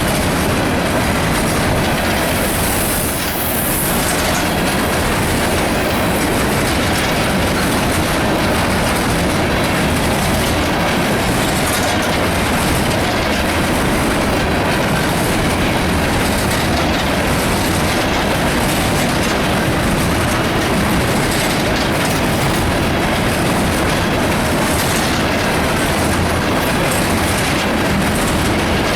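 CSX empty coal train rolling past, the cars running by loudly and steadily, with a brief high-pitched hiss or squeal about three seconds in.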